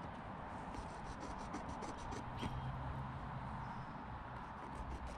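Small clicks and rubbing of hands handling a tool and cloth close to the microphone, over a steady hiss.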